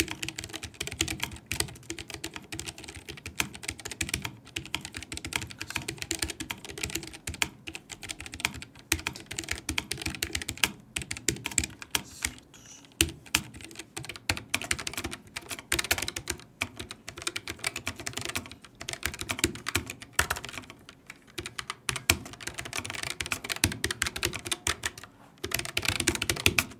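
Continuous fast typing on a Keychron K1 V4 low-profile mechanical keyboard with Gateron switches: a dense stream of key clicks and clacks, broken by a few brief pauses.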